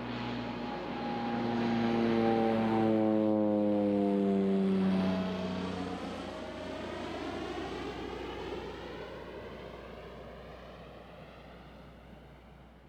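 Airplane passing close by: its engine tone rises to a peak, drops in pitch as it goes past about four seconds in, then fades away into the distance.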